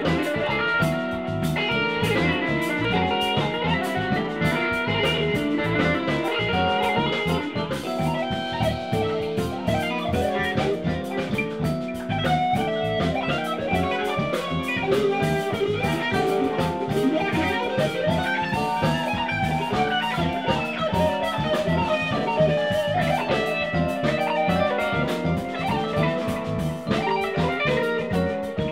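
Live instrumental jazz-funk fusion band playing, with electric guitars to the fore over a steady drum kit groove.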